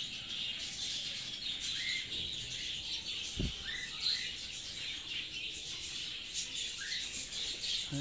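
A flock of budgerigars twittering and chattering without a break, with short louder chirps now and then. A brief low thump about three and a half seconds in.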